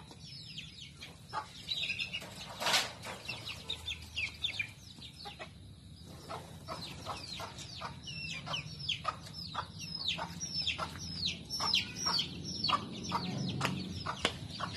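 Chickens peeping: many short, high-pitched, falling chirps, several a second, growing busier in the second half. A brief noise cuts across them about three seconds in.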